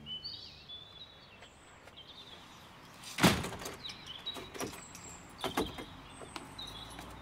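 Birds chirping, with one loud thump about three seconds in and a few lighter knocks after it.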